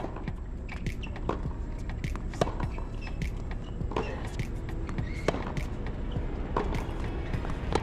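Tennis balls being struck with racquets and bouncing in a practice rally: a string of sharp hits, about one to two a second, over steady outdoor background noise.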